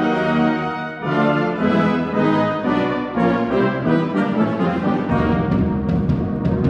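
Brass band of cornets, euphoniums, trombones and tubas playing sustained chords, with a brief break about a second in. From about five seconds in, timpani and percussion strokes come in beneath the brass.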